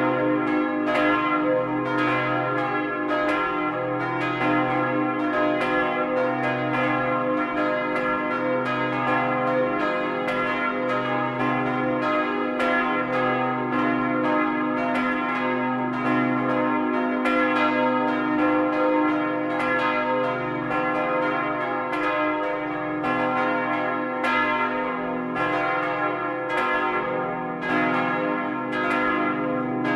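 Four church bells, cast in 1952 by Karl Czudnochowsky in Erding, ringing together in full peal: swinging bells striking in a steady, overlapping pattern with a loud, sustained ringing hum, heard up close in the belfry.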